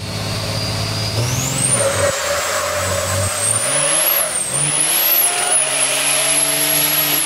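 Diesel truck engine accelerating hard, heard from inside the cab. Its pitch drops and climbs again a few times, over a thin high whistle that rises about a second in and then holds.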